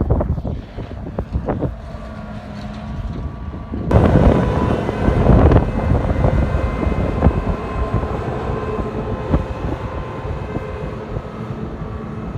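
Wind buffeting the microphone, then about four seconds in a large farm machine's engine is heard running steadily with a whine, the wind still gusting over it.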